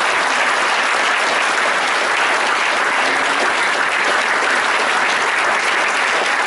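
Audience applauding steadily after a lecture ends, a dense, even clapping from a full hall.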